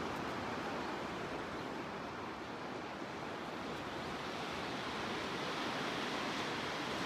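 Gentle ocean surf washing in as a steady hiss. It swells slightly about five seconds in.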